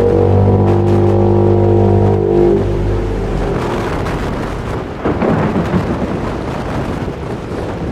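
A deep, steady droning tone that stops about two and a half seconds in, followed by a low rumble with a few sudden swells.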